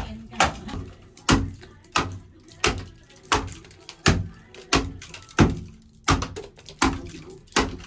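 A steady series of sharp striking blows, about three every two seconds, each a knock with a short ringing tail.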